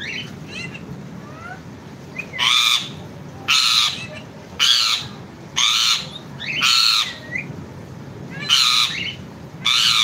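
Rose-ringed (Indian ringneck) parakeet squawking: a few soft chirps, then from about two seconds in a run of seven loud, harsh squawks, roughly one a second with a short pause near the end.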